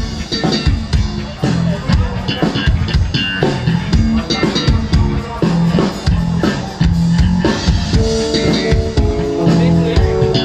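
Live rock band playing an instrumental passage with electric guitar, bass and drum kit, the drums keeping a steady beat. From about eight seconds in, held chord notes sound over the rhythm.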